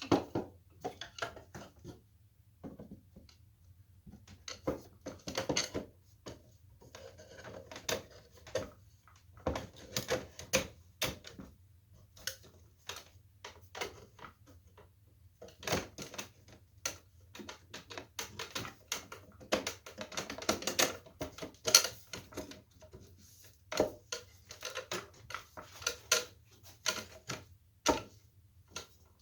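Wooden chair parts knocking and clicking together in quick, irregular taps as the joints are dry-fitted by hand, over a faint steady low hum.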